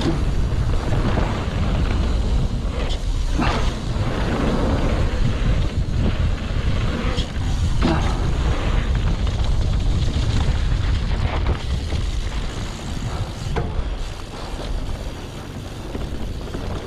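Wind buffeting a mountain biker's action-camera microphone at speed, over the rumble of knobby tyres on a dry dirt trail, with occasional sharp knocks and rattles from the bike over bumps.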